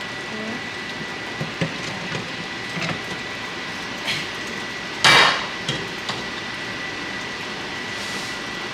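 Metal cookware clinking while sauce is served: a spoon taps and scrapes against a pan in a few light clicks, then one loud metal clank of a pot or lid on the stovetop about five seconds in. A steady faint hiss and a thin high tone sit underneath.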